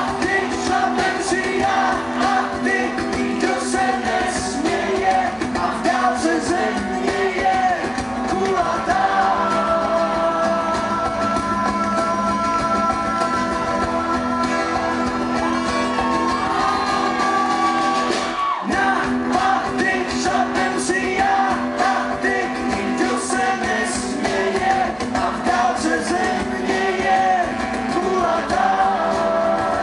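Live band performance: a male lead voice singing over several strummed acoustic guitars.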